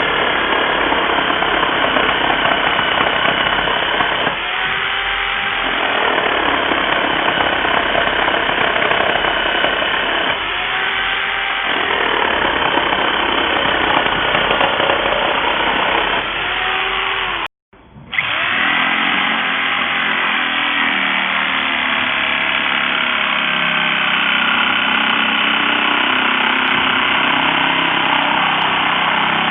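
XCORT XJL02-115 950 W corded reciprocating saw running at speed, its motor pitch sagging and recovering three times in the first half. The sound cuts out for a moment about halfway through, then the saw runs on steadily.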